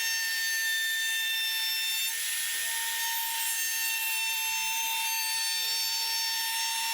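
Router with a roundover bit running steadily along the edge of a cherry board, a constant high whine over cutting hiss.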